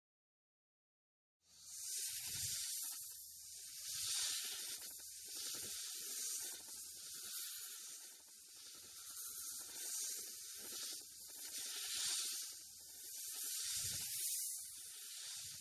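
A snake hissing: a steady high hiss that begins about a second and a half in and swells and eases every second or so.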